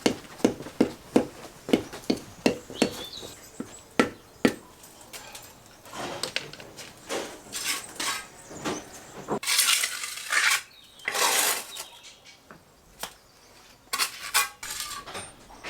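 Mason's trowel working on the block wall: a quick run of sharp metallic clinks and taps, then a few longer scrapes.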